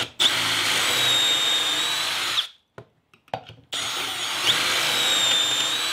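Milwaukee 18V cordless drill spinning a stepped pocket-hole bit into a wooden rail held in a Kreg K4 pocket-hole jig, drilling pocket holes. There are two runs of about two seconds each with a short pause between, each a steady high motor whine over the noise of the bit cutting.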